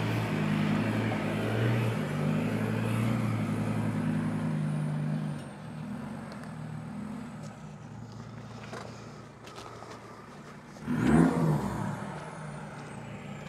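Ford Ranger's 3.2-litre five-cylinder turbodiesel working steadily in low range as it crawls up a rocky hill, then fading as the truck pulls away. About eleven seconds in the engine gives a short burst of revs with a rising then falling pitch.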